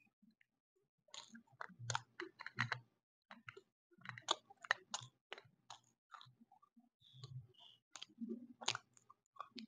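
Close-miked chewing and crunching of lumps of white edible chalk: sharp, irregular crisp cracks with soft chewing thuds between, starting about a second in.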